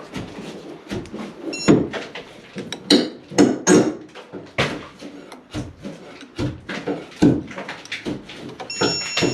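Irregular knocks and clatter of tools and wiring being handled at an electrical box. An electrical tester beeps briefly about a second and a half in, and again near the end, where it signals a live (hot) wire.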